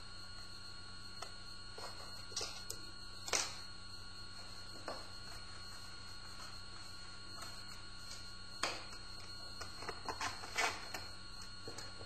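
Scattered light clicks and taps of a screwdriver and small parts being handled on an open laptop's plastic underside and a wooden desk, over a steady faint hum and hiss.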